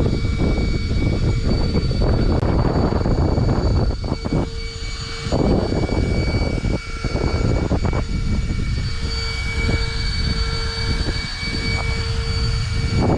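Arrma Infraction 6S RC car's brushless motor whining with a few steady tones over loud rushing wind and tyre noise, heard from a camera riding on the car. The level dips briefly a few times as the throttle eases.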